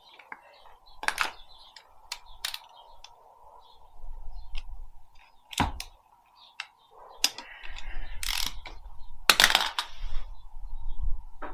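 Metal tools and engine parts clinking and knocking as they are handled during an intake plenum teardown: a string of sharp, irregular clicks with a few louder rattling clatters, over a faint steady high hum.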